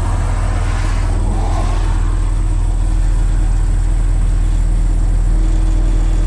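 Steady low bass test tone from a CT Sounds 750.1D car amplifier playing into a reactive load, slowly growing louder as the level is turned up during a clamp power test.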